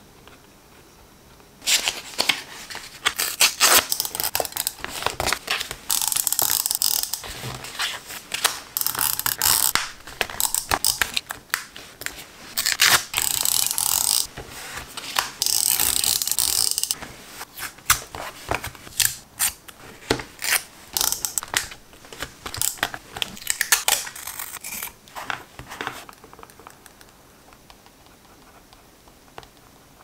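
A clear tape-roller applicator rolled and pressed across paper: on-and-off rasping, ratchet-like whirring with many sharp clicks, along with paper and tape handling. Near the end it drops to faint pen-on-paper scratching.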